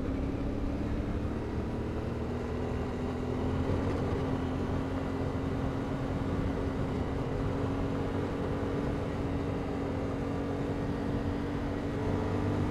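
CFMOTO 450MT's parallel-twin engine running at a steady cruise, its pitch holding almost constant, over wind and road noise.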